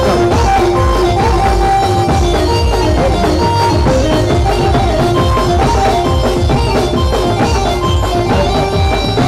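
Loud dance music played over a large DJ sound system: a steady, heavy drum beat with deep bass under a melody of held notes.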